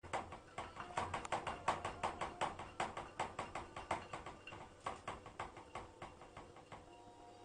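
A rapid series of sharp clicks or scratches, about four or five a second, thinning out and fading over the last second or so.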